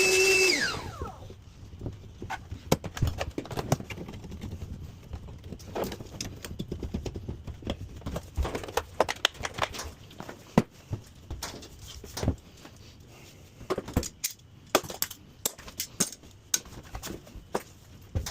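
A power tool, likely a drill, releases and winds down in the first half second, then irregular clicks, knocks and clatter of tools and plumbing parts being handled.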